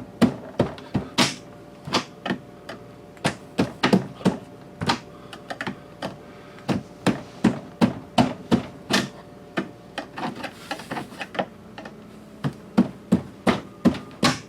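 Rapid, irregular sharp tapping, about two to three knocks a second, as the factory refrigerator door lock is worked loose from the double-sided tape holding it to the door.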